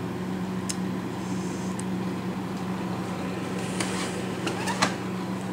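Freezer running with a steady hum, with a few faint clicks scattered through it.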